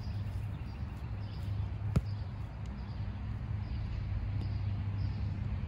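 A soccer ball kicked once, a single sharp knock about two seconds in, over a steady low outdoor rumble.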